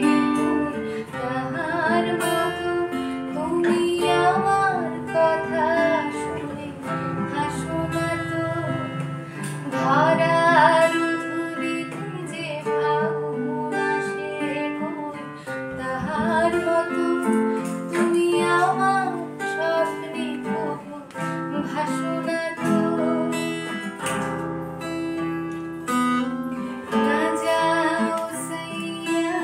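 A woman singing a Bengali song, accompanied by an acoustic guitar that is plucked and strummed throughout.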